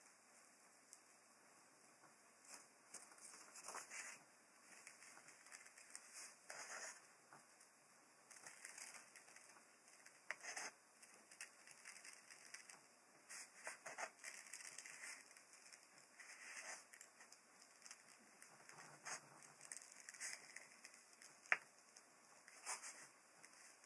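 Small pointed scissors snipping through white paper, faint crisp snips in short, irregular runs as the outline of a freehand papercut is trimmed.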